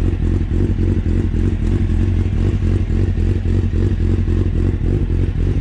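Carbureted motorcycle engine idling steadily with an even pulsing beat, warming up after a start.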